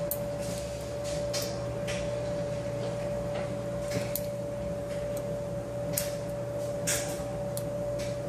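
A Peterson Gem hook pick working the pins of an ACE 50mm padlock under light tension from a tension wrench: scattered small metallic clicks and ticks, every second or so, over a steady background hum.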